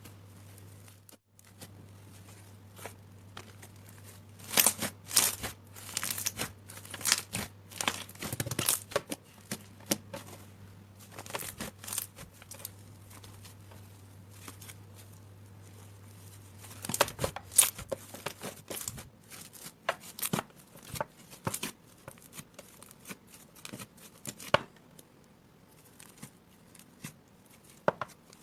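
Slime being squeezed and pulled by hand, giving irregular clusters of sharp crackling and popping, with quieter pauses between handfuls.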